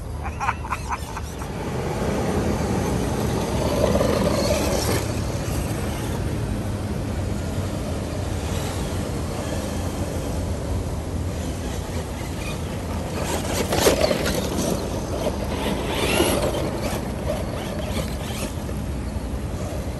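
Radio-controlled two-wheel-drive monster truck driving over loose dirt and gravel, its motor and tyres running steadily and swelling louder a few times. A quick rattle of clicks comes just after the start, and a sharp knock about two thirds of the way through.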